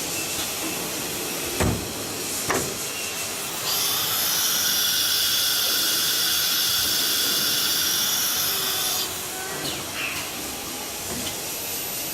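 CNC router with a disk-type automatic tool changer at work: steady air hiss, two sharp clunks, then about five seconds of loud high-pitched whine over hiss, after which it drops back to hiss.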